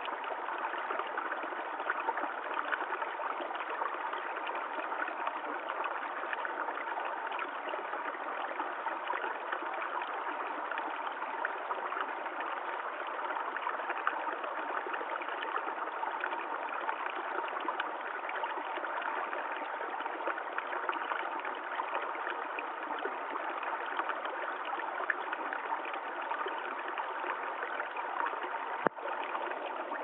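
Shallow forest stream flowing steadily over pebbles and stones, a constant babble of running water. One brief click near the end.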